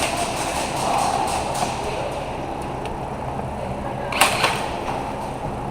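Two sharp snaps about a third of a second apart, about four seconds in, typical of airsoft gunfire, over a steady background hiss.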